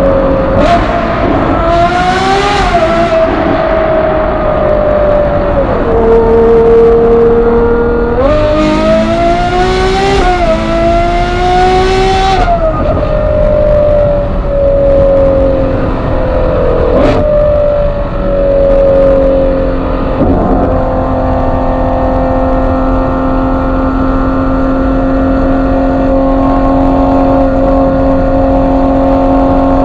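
Ferrari 812 GTS's naturally aspirated 6.5-litre V12 through a Novitec exhaust, heard from the driver's seat. It accelerates hard twice, revs climbing with a quick upshift partway; the second run rises to a loud rasp and cuts off as the throttle closes. The engine then settles to steady cruising revs, with one short sharp crack midway.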